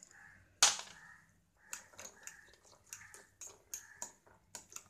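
One loud, sharp clink about half a second in as chopped onion is tipped from a glass bowl into a ceramic mixing bowl, then a steel spoon clinking against the ceramic bowl, several clicks a second, as the egg mixture is stirred.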